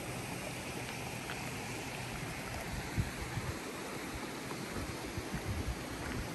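Steady outdoor hiss with wind buffeting the microphone in low thumps, once about three seconds in and several times near the end.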